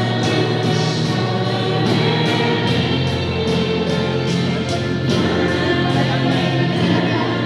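Choir singing with instrumental accompaniment over a steady beat.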